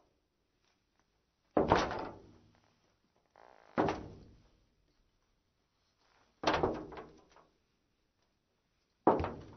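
Women's heeled shoes stepping slowly on a metal floor: four footsteps about two and a half seconds apart, each a sharp hard clack that rings briefly. Before the second step there is a softer scuff.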